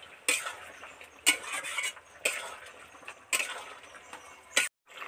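Metal spatula scraping and knocking against a kadai while stirring a thick curry, about one stroke a second.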